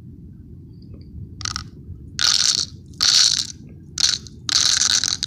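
Small aquarium gravel poured by hand into an empty clear plastic Tic Tac box, the stones clattering against the thin plastic. The clatter comes in several short bursts from about a second and a half in, then runs on longer near the end as more stones pour in.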